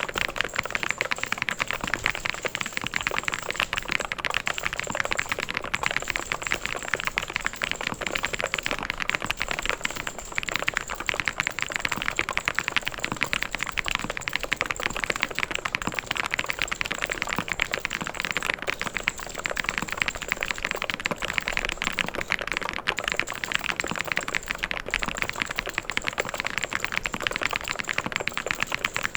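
Fast, continuous typing on a mechanical keyboard, a dense patter of key clicks with a short lull about ten seconds in.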